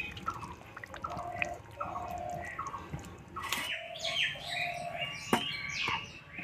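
Birds chirping: a run of short, repeated calls, some falling in pitch, with a sharp click about five seconds in.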